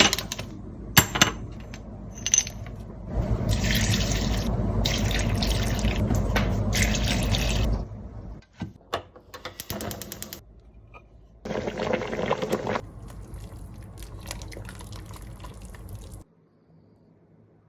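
Water pouring steadily for about five seconds, then a second, shorter pour about twelve seconds in.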